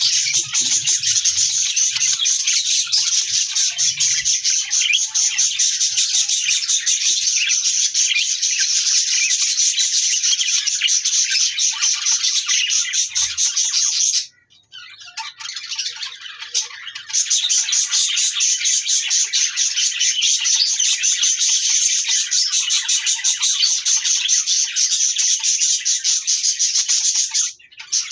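A flock of budgerigars chattering and chirping densely and without pause, with a sudden lull about halfway through before the chatter builds back up.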